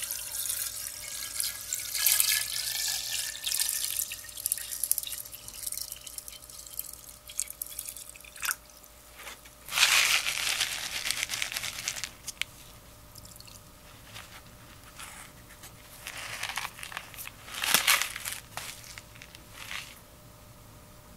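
Water pouring from a jug into a glass fishbowl, splashing for several seconds. It is followed by shorter, louder bursts of pouring and splashing as aquarium salt and water conditioner are added.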